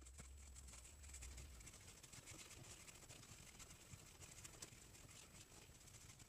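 Knife blade shaving a wooden atlatl arrow shaft: faint, quick scraping strokes along the wood.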